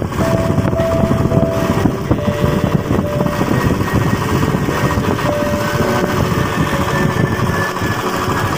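Motorcycle engine running steadily as the bike is ridden along a road, with wind rushing over the microphone.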